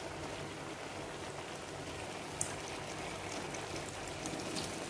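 Broth simmering in a wok: a steady bubbling hiss with fine crackle, with a few faint clicks over it.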